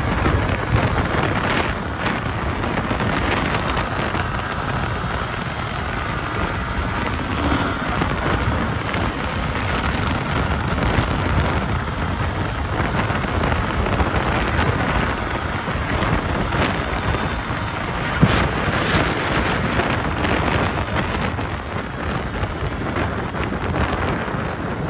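Wind rushing over the microphone of a rider on a moving motorbike, with a steady low rumble underneath.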